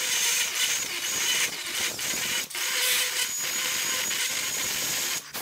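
Handheld high-speed rotary tool with a coarse burr grinding into wood: a steady high whine with gritty cutting noise that dips briefly a few times. It is routing out a crack into a tapered recess to prepare it for filler.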